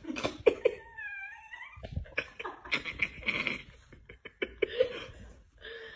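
Chihuahuas vocalizing at each other as one paws the other: a wavering whine about a second in, then short grumbling growls.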